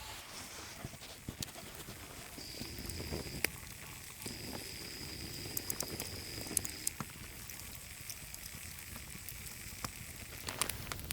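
Campfire crackling with scattered sharp pops, and a thin steady high whistle that sounds twice in the first half, a few seconds long each time.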